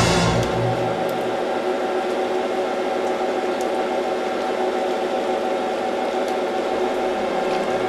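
Orchestral music fades out in the first second or so, leaving a steady mechanical whir and whine made of several steady tones, with no deep rumble.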